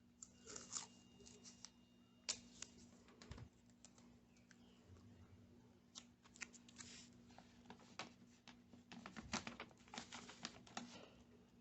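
Faint, scattered clicks and crinkles of masking tape being torn off and pressed down to hold a stencil in place, over a low steady hum.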